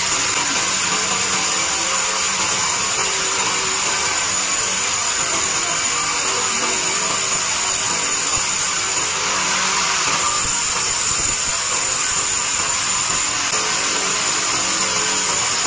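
Large sawmill band saw running and sawing a log carried past its blade: a steady, high whine over dense, even saw noise.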